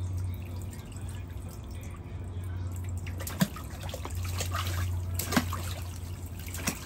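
Shallow water in an inflatable paddling pool splashing and dripping as a toddler kicks her legs, with a few sharper splashes.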